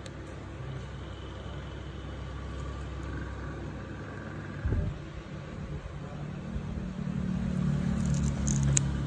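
A steady low rumble with a short dull thump about halfway through, then a low hum that builds near the end, with a few faint sharp clicks.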